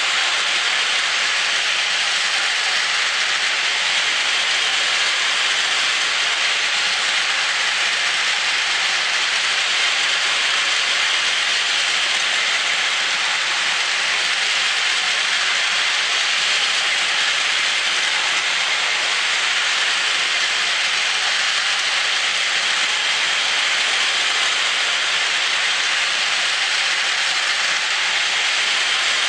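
Two battery-powered Plarail toy trains, an E5 Hayabusa and an E6 Komachi full set, running together on plastic track: a steady, high whirring hiss from their small motors, gearboxes and wheels on the plastic rails.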